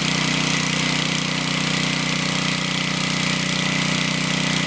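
One-cylinder four-stroke Briggs and Stratton engine, a riding-lawnmower engine, running steadily under load from a water brake dynamometer while the brake's water valve is opened a little more to raise the load.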